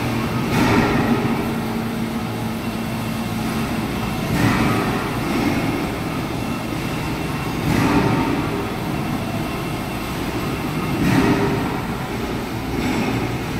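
Large engine lathe turning a hardened steel ring at low speed with a carbide-tipped tool: a steady mechanical rumble with the cutting noise swelling about every three and a half seconds.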